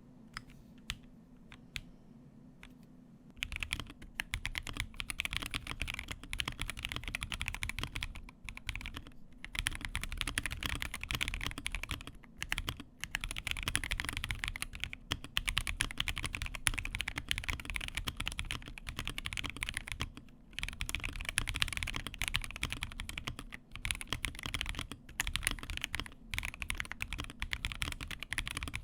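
Akko ACR Pro Alice Plus gasket-mounted mechanical keyboard being typed on fast and continuously, in a typing test. A few single key clicks come first, the steady typing starts about three seconds in, and there are brief pauses now and then.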